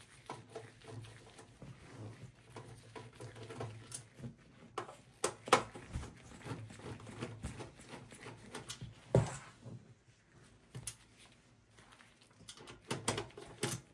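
Hand screwdriver with a T15 Torx bit backing screws out of a steel PC case: scattered small clicks, ticks and scrapes of bit, screws and sheet metal, with a sharper knock about five and a half seconds in and another about nine seconds in.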